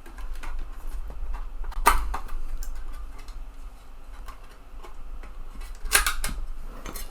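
Scattered small mechanical clicks and knocks from a TEAC FD-235F 3.5-inch floppy drive's eject mechanism being moved by hand while its eject fault is diagnosed, with a sharper click about two seconds in and a few more around six seconds, over a steady low hum.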